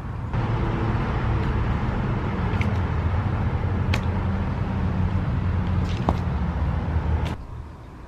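Steady low mechanical rumble with a hiss over it and a few faint clicks. It cuts off abruptly near the end.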